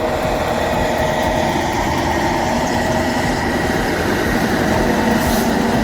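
Heavy machinery's engine running steadily, with a low rumble and a steady whine.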